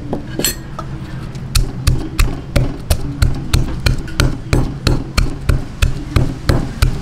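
Pestle pounding lemongrass in a small mortar: steady, even strikes about three a second, starting about a second and a half in.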